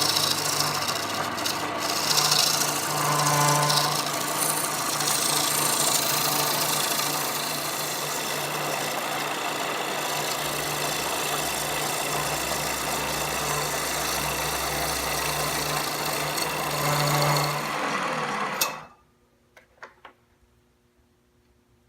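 Wood lathe running with a tool rasping against a spinning walnut bowl, over the motor's steady hum. The sound stops abruptly about three-quarters of the way through, leaving near silence with a few faint clicks.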